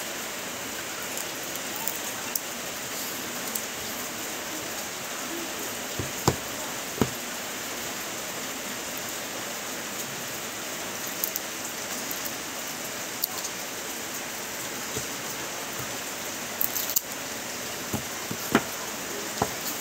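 Fingers handling a cardboard smartphone box and picking at its seal sticker, giving scattered sharp taps and clicks, several close together near the end, over a steady hiss.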